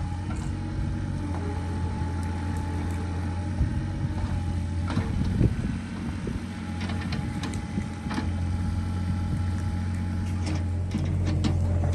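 A motor or engine running steadily, with scattered clicks and knocks over it; it gets a little louder near the end.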